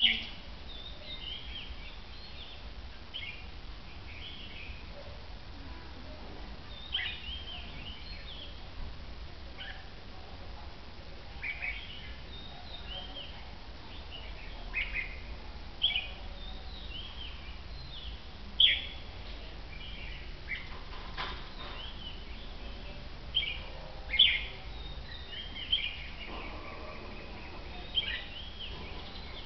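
Caged red-whiskered bulbuls calling: short, bright chirping phrases every few seconds, over a steady low rumble.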